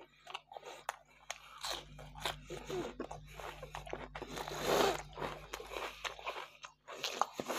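Close-miked eating sounds: wet mouth clicks, biting and chewing of fried meat. Just past the middle comes a longer, louder rustle as a round of Iraqi flatbread is torn apart.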